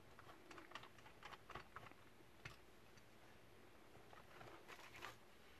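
Faint small clicks and taps of a Dell Inspiron laptop's plastic case being handled during reassembly: a scatter of light clicks over the first two and a half seconds, then a brief cluster of clicks near the end, over near-silent room tone.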